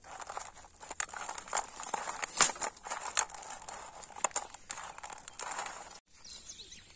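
Raw crab pieces being mixed by hand on a steel plate: soft squishing with irregular sharp clicks of shell against shell and plate, stopping suddenly about six seconds in.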